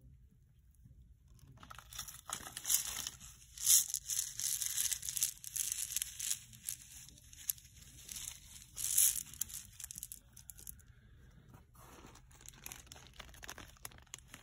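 Crinkling and rustling of handled packaging, in irregular crackling bursts with sharper loud snaps twice, then softer rustles near the end.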